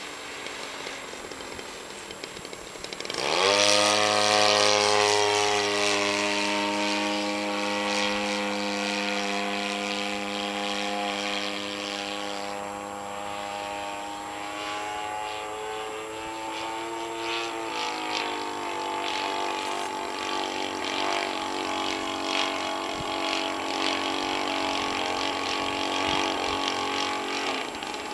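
Light aircraft's engine starting about three seconds in, its pitch sweeping up quickly, then running steadily. A little over halfway it steps up to a higher speed and holds there.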